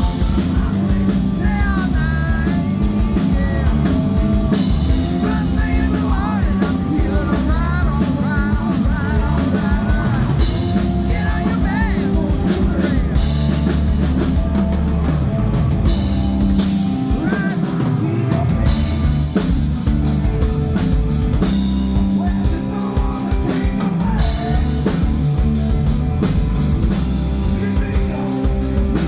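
Live rock band playing loudly, with electric guitar, bass and drum kit.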